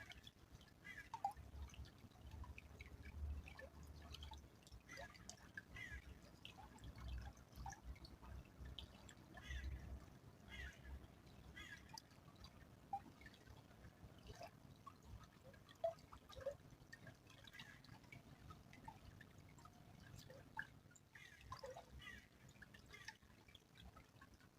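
Quiet small stream trickling, with irregular dripping plinks of water throughout and a few low rumbles.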